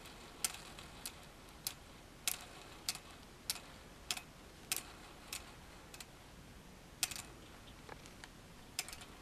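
Homemade solenoid engine clicking: its coil is pulsed by a 555 timer through a transistor and snaps the plunger with sharp clicks about every 0.6 s, then a few irregular clicks near the end. The engine does not keep running, and the builder judges the timer's cycle too long for the flywheel to come back around.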